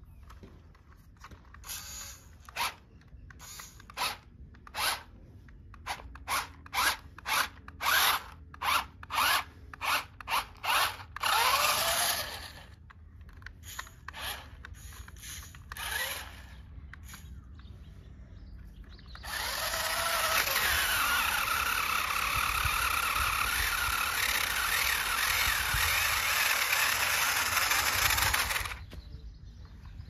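RC rock crawler's electric motor and gearbox whirring in a quick series of short throttle bursts, then running continuously for about nine seconds as the truck climbs a loose dirt bank.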